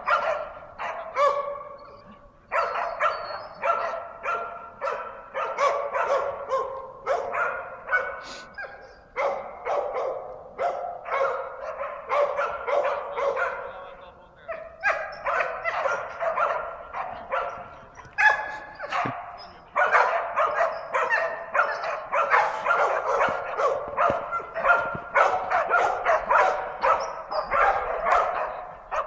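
Hunting dogs bay-barking at wild boar: quick, repeated barks, two or three a second, broken by a few short pauses. Barking of this kind is how the dogs hold the boar at bay.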